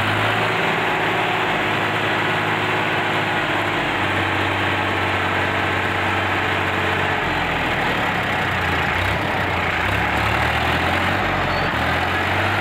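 Indo Farm 3048 DI tractor's diesel engine running steadily, its note shifting about seven seconds in.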